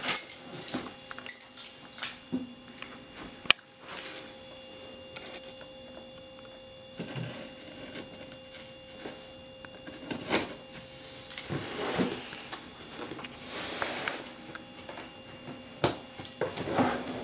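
A cardboard box being handled and its tape slit with a small knife: irregular scraping, rustling and light knocks, with one sharp click about three and a half seconds in, over a faint steady hum.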